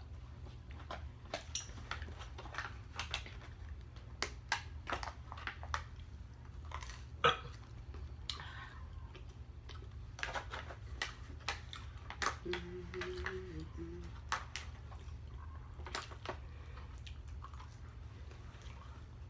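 Close-up chewing and mouth sounds of a person eating: a run of wet smacks and small sharp clicks at irregular intervals, with a short low hum about two-thirds of the way through.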